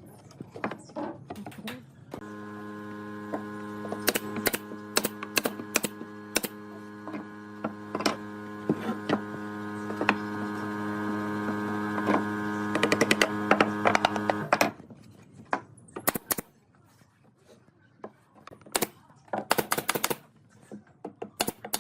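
An electric power tool's motor hums steadily, starting about two seconds in, growing slightly louder, then cutting off suddenly about fourteen seconds in. Sharp wooden clicks and knocks of work on the wood sound throughout and carry on after the motor stops.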